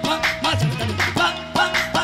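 Qawwali accompaniment without voice: tabla playing a brisk rhythm of about four to five strokes a second, its bass drum strokes sliding in pitch, over a harmonium holding a steady note.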